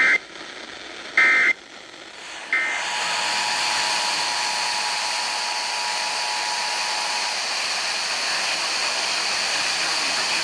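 Emergency Alert System end-of-message signal: three short bursts of digital data tones about a second and a quarter apart, marking the end of the tornado warning broadcast. Then a steady radio hiss.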